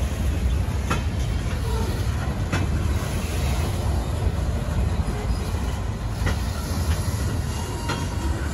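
Freight train boxcars rolling past: a steady low rumble of steel wheels on rail, with a few sharp clicks and clanks scattered through it.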